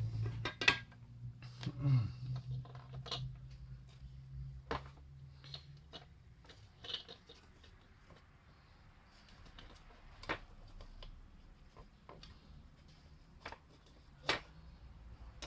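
Scattered clicks and knocks of small plastic parts being handled on a workbench: the blue plastic casing of a small portable radio speaker and its battery pack being picked up and fitted together. A low hum stops about six seconds in.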